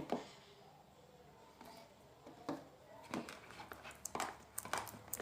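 Spoon stirring and scraping a thick homemade slime mixture of glue, white toothpaste and talc in a bowl: faint scattered clicks and soft sticky sounds, busier near the end.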